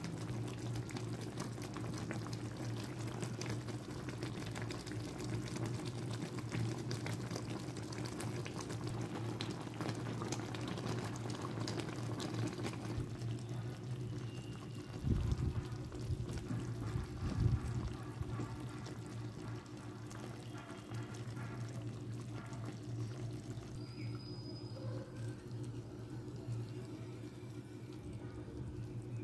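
Mango pieces simmering in thick jaggery syrup in a pan, the syrup bubbling and crackling with many fine pops, over a steady low hum. Two low thumps come about halfway through.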